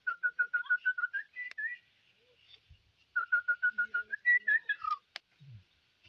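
A man whistling an imitation of a bird call: a quick run of about eight short notes on one pitch, then a few higher notes and a falling note. After a pause the same phrase comes again about three seconds in.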